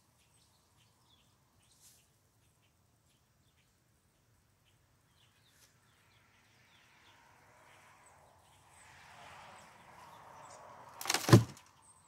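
Faint rustling of handling, then two knocks near the end, the second loud and sharp, as an upturned plastic flower pot is knocked down into a plastic tub to tip out its soil.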